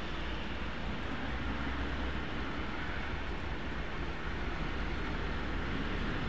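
Heavy rain falling on a vehicle, heard from inside it as a steady hiss, over a steady low hum.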